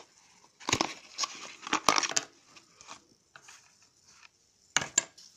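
Small retail packaging being opened and handled, crinkling and crackling in several quick bursts, with fainter rustling after. Near the end come two sharp clicks a moment apart.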